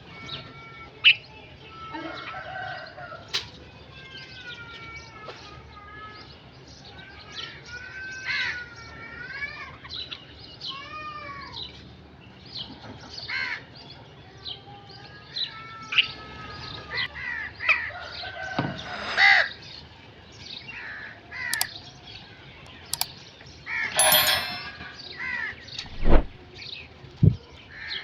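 Birds calling throughout: crows cawing amid chirps and wavy whistled calls from other birds. A harsh, noisy call comes about three-quarters of the way in, and two loud low thumps follow near the end.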